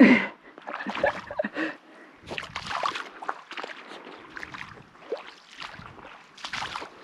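Water sloshing and splashing in irregular bursts in shallow river water, starting with a sharp loud splash or knock.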